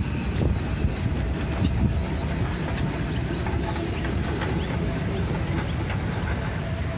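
Sydney tramway freight car 24s, built in 1903, running along the track: a steady low rumble of wheels and running gear on the rails. A few short high chirps sound about three to five seconds in.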